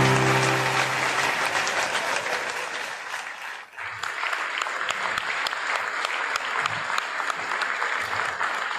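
Audience applauding, a dense patter of hand claps. A held music chord fades out in the first second, and the clapping drops away briefly just under four seconds in before starting up again.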